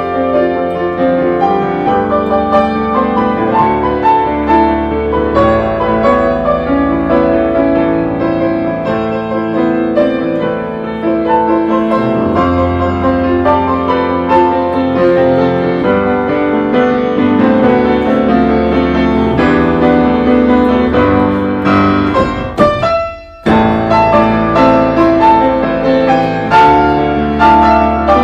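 Background piano music, a slow melody over held low notes, with a brief break near the end.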